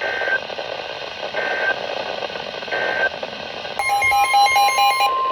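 Emergency Alert System tones on NOAA Weather Radio. First come three short electronic data bursts about 1.4 seconds apart, the end-of-message code that closes a warning. Near the end a steady weather-alert attention tone starts, with rapid beeping over its first second or so, ahead of the next warning.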